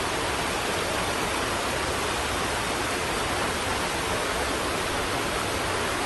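Steady rushing of a mountain creek over rocks, an even hiss with no change in level.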